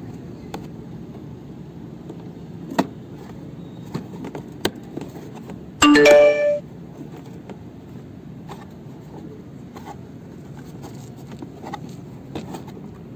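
Scattered light clicks and taps from hands handling a yellow plastic toy car body and its small screws, over a steady low background hum. About six seconds in comes one loud, short chime-like sound made of several tones.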